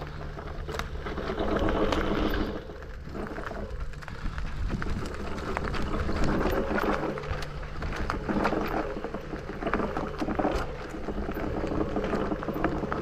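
FEDDZ PF1 electric off-road bike ridden along a rough trail: a low, steady electric-motor hum under tyre noise, with many small clicks and knocks from stones and the bike's rattling parts.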